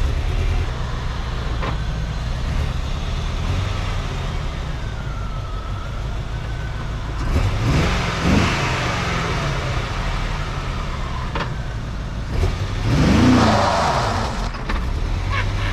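Corvette LT4 small-block V8 running, revved up and let fall back twice, about halfway through and again a few seconds later.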